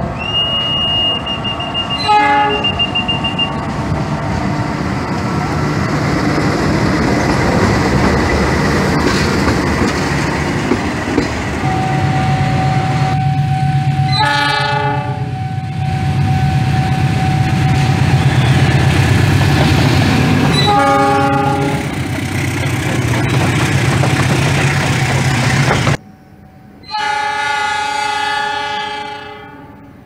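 CC 206 diesel-electric locomotive sounding its air horn in short blasts, about four times, with the diesel engine and the train running by between them. After a sudden cut near the end, another horn blast comes from a second train approaching.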